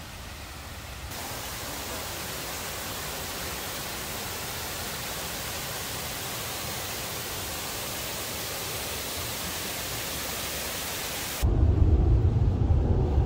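Water pouring steadily over a stepped granite waterfall, a rushing hiss that sets in about a second in. Near the end it cuts off abruptly to a louder low rumble of wind buffeting the microphone.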